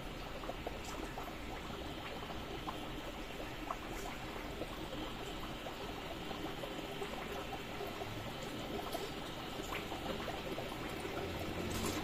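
Water in a guppy aquarium trickling and bubbling steadily, with many small pops and ticks, growing a little louder near the end.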